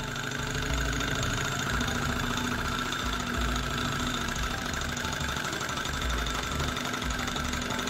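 Small model thermoacoustic Stirling engine running after its flywheel is started by hand: a rapid, steady mechanical chatter from the piston and flywheel, with a constant high hum over it.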